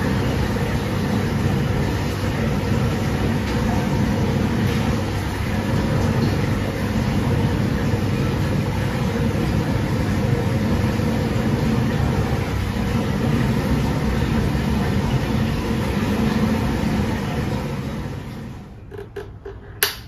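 Steady drone of city traffic. It fades away near the end, and a single sharp click comes just before it finishes.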